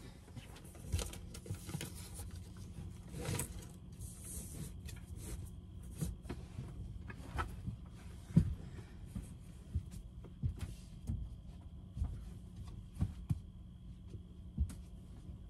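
Bedding rustling and foam bench cushions being handled, lifted and set down with scattered soft thumps and one sharper knock, as a camper van bed is folded back into seating. A steady low hum runs underneath.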